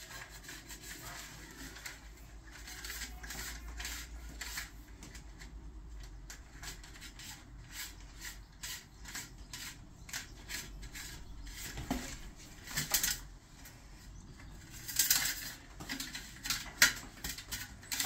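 Thin sensor cable being fed through a plastic boiler flue pipe, rubbing and scraping against the plastic, with the clicks and light knocks of the pipe being handled. The scraping comes in short irregular strokes and grows louder in a few spells in the second half.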